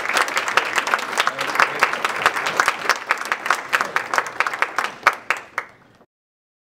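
Audience applauding, the clapping thinning out to a few last claps and stopping about six seconds in.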